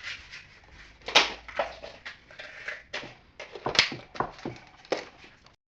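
Kitchen clatter: about ten sharp knocks and clinks of utensils and a metal cupcake tin being handled, spaced irregularly and cutting off abruptly near the end.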